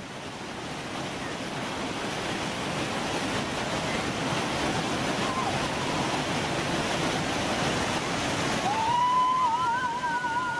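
Whitewater rapid rushing steadily, the water noise swelling over the first few seconds. Near the end a high, wavering call rises over the water.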